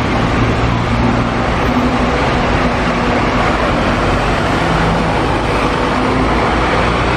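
Bus engine and road noise: a steady, loud rumble with a low engine hum that shifts pitch now and then.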